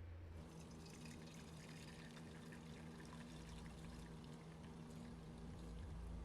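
Water pouring faintly in a thin, crackling stream, over a steady low hum.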